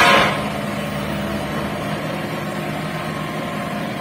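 Diesel engine of a Cat 304E mini excavator running steadily, with a brief loud burst of noise right at the start.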